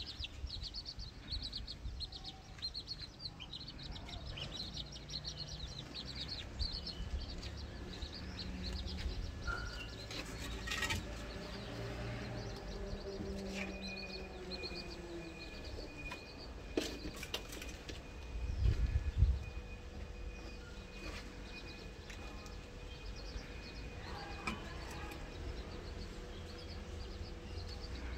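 Small birds chirping over and over, thickest in the first third. About two-thirds of the way through there is a short low rumble, the loudest moment.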